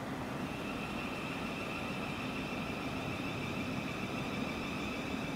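Electric multiple-unit train at the station, giving a steady high whine over a low hum and a rushing noise. The whine starts just after the beginning and holds one pitch.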